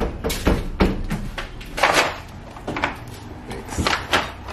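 Irregular knocks and clicks of hand work on the bus door, a metal flat bar being handled against it, with a short louder rustling scrape about two seconds in.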